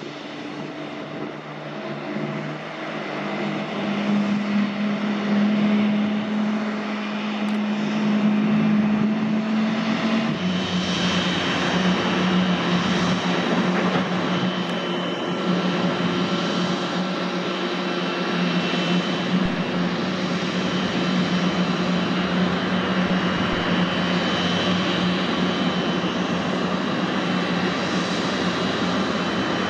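Aircraft engines running, growing louder over the first few seconds and then holding a steady, loud drone with a low hum and a higher whine. The hum drops slightly in pitch about ten seconds in.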